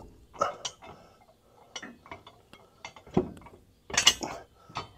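Scattered metallic clinks and taps of steel nuts and bolts being handled and threaded on by hand, as the nuts are started on a gooseneck hitch's mounting bolts, with a couple of louder knocks about three and four seconds in.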